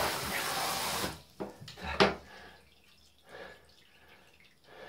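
Hand-held shower spraying water into a bathtub, cutting off about a second in, then water dripping and trickling with a few sharp knocks, the loudest about two seconds in.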